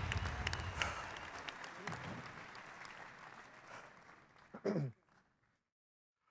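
Audience applause fading out over about four seconds, followed by a brief falling voice sound near the end.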